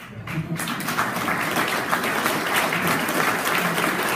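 Audience applause: many people clapping, starting quickly in the first half second and holding steady.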